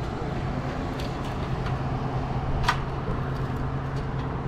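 Suzuki GSX-R600 inline-four running steadily through an M4 slip-on exhaust at an even, unchanging engine speed. A single short click sounds a little past halfway.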